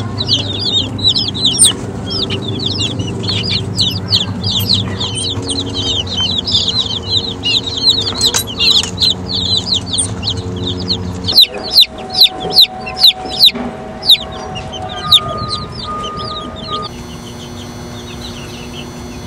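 A brood of baby chicks peeping all together, a dense stream of rapid, high, falling chirps, over a low steady hum for the first half. A little past the middle comes a quick run of about six sharp, loud taps.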